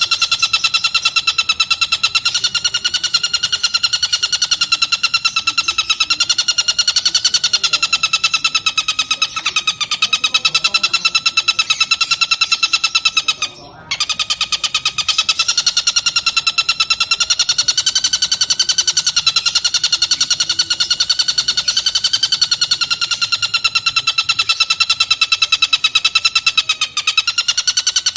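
Tengkek buto kingfisher calling in one long, fast, even chattering trill, steady in pitch, with a brief break about halfway.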